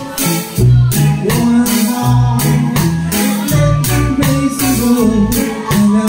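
Live band playing: keyboard, electric bass and drums in a steady beat, with a man singing.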